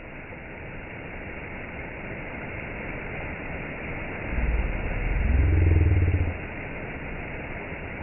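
Small waterfall in a creek pouring over rocks: a steady rush of splashing water. From about halfway through, a louder low rumble with a brief upward-gliding tone lasts about two seconds over it, then drops away.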